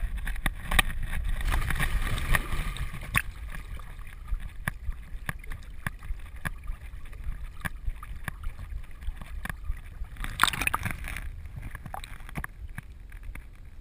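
Water splashing and lapping close around a vest-mounted camera on a swimming retriever. It is loudest in the first couple of seconds as the dog enters and pushes through the water, then settles to steady sloshing with scattered small clicks and a louder rush of splashing about ten seconds in.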